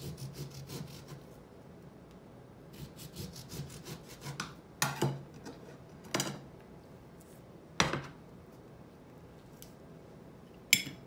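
A knife sawing through a whole lemon in quick scraping strokes as it is scored into quarters on a cutting board, followed by four sharp knocks spaced a second or more apart, the last and loudest near the end.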